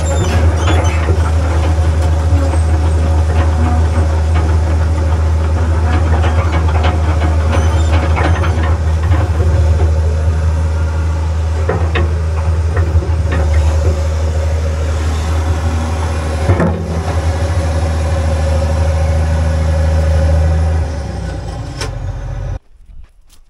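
Tracked excavator's diesel engine running steadily under load, heard from inside its bucket, with a few sharp metal clanks as the bucket moves. The sound cuts off suddenly near the end.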